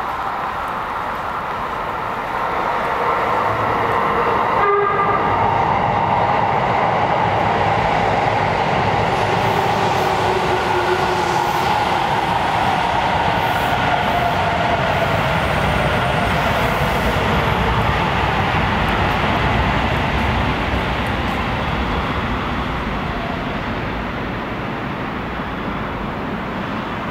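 A Sendai Subway Namboku Line train pulling into the platform: its running noise and motor whine build up, and the whine falls steadily in pitch as it brakes. There is a single knock about five seconds in, and the noise eases toward the end.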